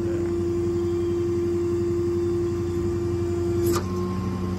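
Steady mechanical hum with a constant whine from the running Ford F550 service truck. A click comes near the end, and after it the whine changes pitch.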